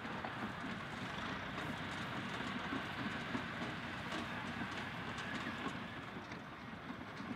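Steam traction engines and vintage machinery running: a steady mechanical clatter with many small ticks and knocks.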